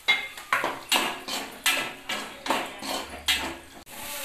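Metal ladle knocking against a metal cooking pot as curry gravy is scooped and stirred: a quick series of about ten ringing clanks, two or three a second.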